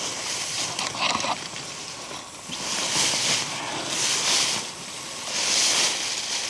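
Footsteps pushing through dense brush, with leaves and stems swishing against the legs about once every second or so.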